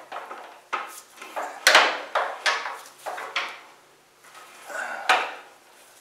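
Several irregular sharp metal clanks and knocks: a socket on an air impact gun being worked against a lawn tractor's steel frame while trying to seat it on an engine mounting bolt.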